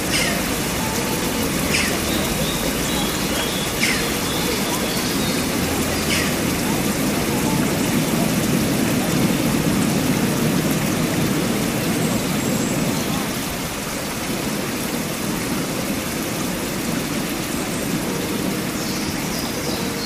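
Sea surf breaking and washing over a rock ledge: a steady rushing of water that swells in the middle, with a few sharp splashes in the first several seconds.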